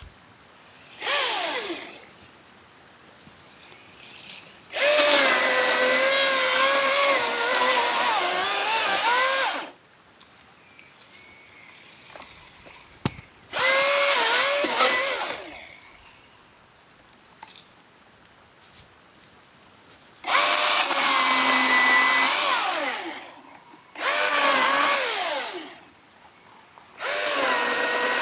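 Cordless electric chainsaw cutting in about six bursts of a few seconds each, with quiet pauses between. Its motor whine wavers and dips as the chain bites into the wood.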